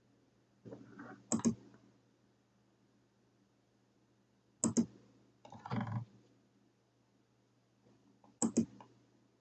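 Computer mouse button clicking three times, about three seconds apart, each time a quick pair of sharp clicks. Softer scuffing comes just before the first two.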